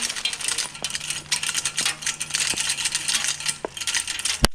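Tripod deer corn feeder's spinner throwing corn: a dense rattle and patter of kernels scattering, over a steady low hum of the spinner motor. The hum stops a little before the end, and the spray ends with one sharp knock. The feeder is dispensing on a timer test run, showing the new timer works.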